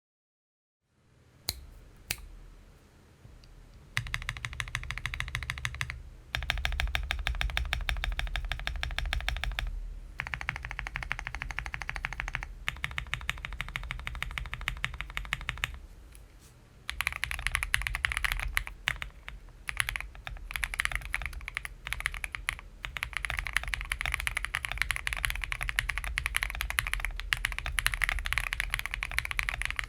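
Akko 5075B+ mechanical keyboard with Akko V3 Cream Yellow linear switches, foam-filled and tape-modded, being typed on. A few single key presses come first, then fast continuous typing from about four seconds in, in long runs with brief pauses.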